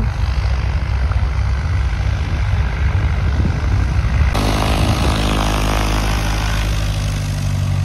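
Single-engine propeller plane (Piper PA-28) running on the runway, a low steady drone. About four seconds in it cuts to a Cessna 172 taxiing close by, its propeller engine running at low power with a steady, even buzz.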